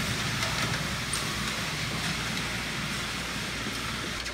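Hot steel ball-peen hammer heads hissing as they are quenched in salt water and stirred with tongs: the hardening quench. A steady hiss that slowly dies down.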